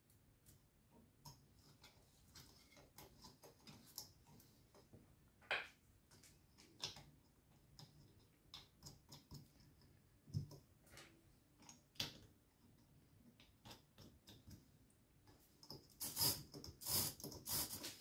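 Olivetti Lettera 22 typewriter's carriage and platen parts being handled, giving scattered small metallic clicks and knocks, with a denser run of clatter near the end.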